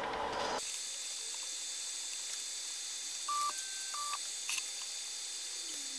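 Short beep from an Elegoo Neptune 2 3D printer's buzzer about three seconds in, a tone stepping up in pitch and back down, over a faint steady hum and hiss.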